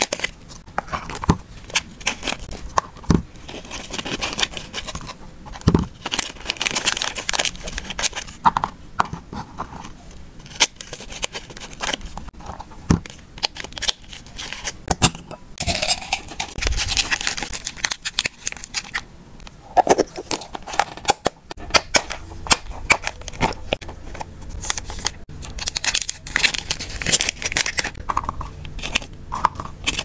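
Hands packing dry hamster snacks: a metal spoon scoops and tips crunchy treats into small plastic tubs, with many sharp clicks and taps of spoon on plastic and rattling pieces. Two stretches of plastic snack bags crinkling, one about 6–9 s in and one about 15–18 s in.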